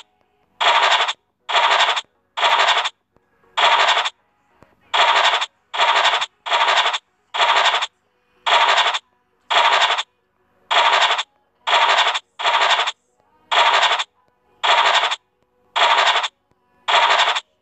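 Scratch-off sound effect of the FDJ Illiko 'Cash' online scratch game, played as each hidden number is uncovered. There are about seventeen short scratches, roughly one a second, each cut off by silence.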